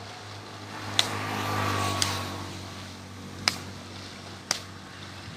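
A steady low mechanical hum that swells about a second in, with four sharp snaps spread through it.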